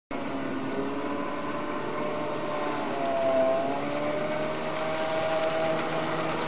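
Small engine driving a hydrofoil boat across the water, a steady drone whose pitch dips and then rises again about three seconds in, over a constant hiss.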